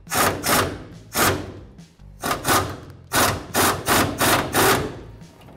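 Socket wrench on a swivel and extension working the rusted upper rear shock bolt loose: a run of short rasping strokes, roughly two a second.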